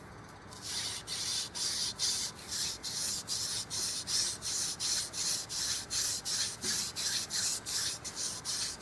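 Hand drill at work: a seep willow spindle spun back and forth between the palms, rubbing in a yucca stalk hearth board as it seats the first hole. The rubbing rises and falls evenly a few times a second and starts about half a second in.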